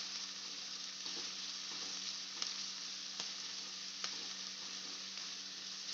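Chopped onion, garlic and green chillies sizzling steadily in hot oil and butter in a kadai on a high flame, with a few faint clicks as they are stirred.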